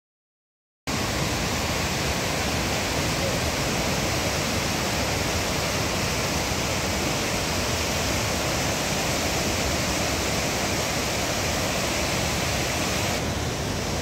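Fast mountain river rushing over rocks in white-water rapids: a steady, even rushing noise that starts suddenly about a second in and turns slightly duller near the end.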